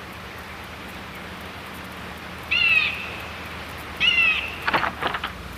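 Crows cawing over a steady background hiss: a single harsh caw about halfway through, another a second and a half later, then several quick caws near the end.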